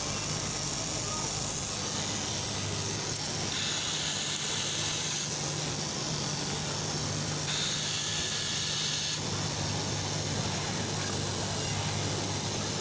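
Electric straight-knife cloth cutting machine running, a steady motor hum under a broad hiss as its upright reciprocating blade cuts through a tall stack of fabric. A higher hiss comes in twice, for a second or two each time, around the middle.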